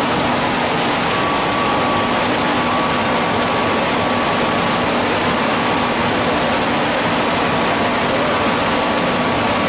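Hydraulic spindle veneer lathe running steadily, peeling veneer off a turning log: a constant, loud rushing machine noise with a steady high whine.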